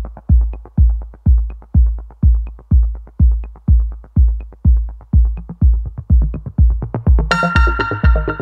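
Background electronic music with a steady kick-drum beat, about two beats a second; a bright synth chord comes in near the end.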